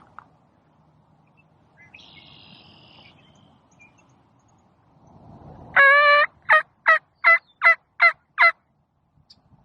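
Wild turkey yelping loudly: one drawn-out note, then a string of seven short yelps at about three a second.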